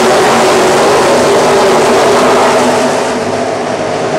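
A field of NASCAR pickup trucks' V8 engines running together as the pack passes the grandstand, a loud dense engine noise that eases a little about three seconds in.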